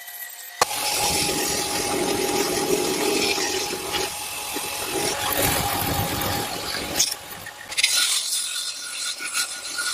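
A power tool working steadily on the axe, heard in several short clips that cut in and out abruptly.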